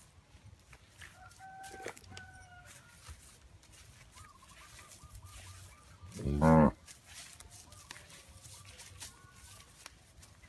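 Chickens calling faintly, with farmyard clucks and crowing. About six seconds in comes one loud, short, low-pitched call, the loudest sound here.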